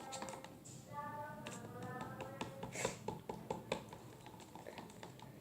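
A stirring utensil clicking and tapping irregularly against a container while mixing white glue and acrylic paint for slime, the taps thinning out after about four seconds.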